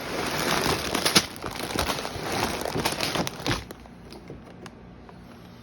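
Packaging crinkling and rustling as a Lego set box is opened, for about three and a half seconds, then a few small clicks.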